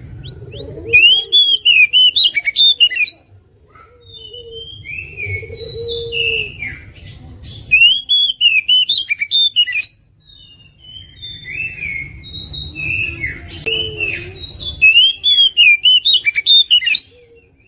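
Oriental magpie-robin singing: three loud bursts of rapid, sharp repeated notes and whistled phrases, one about a second in, one in the middle and one near the end, with quieter varied twittering between them.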